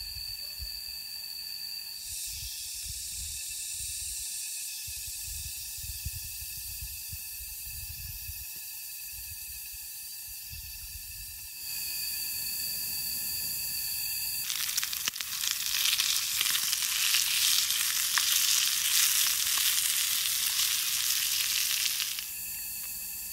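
Food sizzling and spitting in a frying pan over a campfire. It comes in suddenly about fifteen seconds in as the loudest sound, a dense crackling sizzle, and stops suddenly some eight seconds later.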